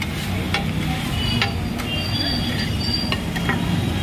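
Metal spatula clacking and scraping on a large flat iron tawa as bheja fry masala is worked, with a high metallic squeal of the blade against the griddle for about two seconds in the middle. A steady low rumble sits underneath.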